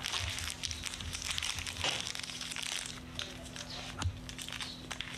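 Thin plastic wrapper crinkling and rustling as a small snack stick is peeled out of its packet by hand, densest in the first three seconds, with a sharper click about four seconds in. A steady low hum runs underneath.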